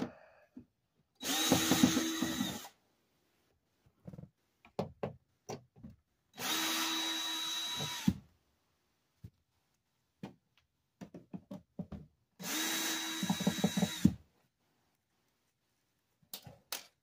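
Cordless drill-driver backing screws out of a TV's plastic back cover. It runs in three separate spells of about a second and a half to two seconds each, with short clicks and knocks of handling between them.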